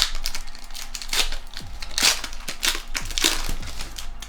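A foil Pokémon booster pack wrapper crinkling as it is handled and torn open by hand, in several short rustling crackles.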